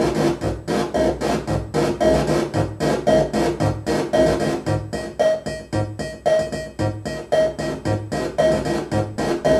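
Hand-built circuit-bent noise machine playing a fast, rhythmic electronic pulse loop with a repeating pitched note. The tone turns grainier and buzzier about halfway through as a knob on the box is turned.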